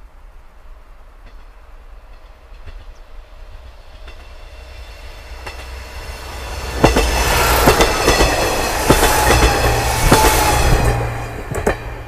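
KiHa 48 diesel railcar train approaching and passing at speed: the low diesel drone and the clatter of wheels over the rail joints build up, stay loud for about four seconds, then fall away quickly near the end.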